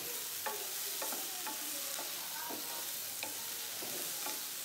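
Chopped capsicum, tomatoes and green chillies sizzling in hot ghee in a stone-coated kadhai, with a steady hiss. A spatula stirs them, tapping and scraping against the pan every half second or so.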